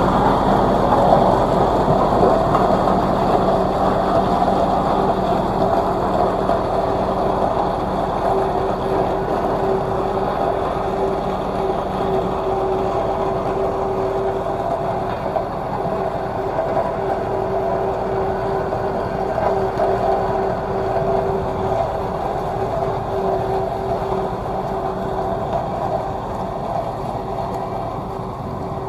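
Tandem road roller's diesel engine running steadily with a constant hum, gradually getting quieter.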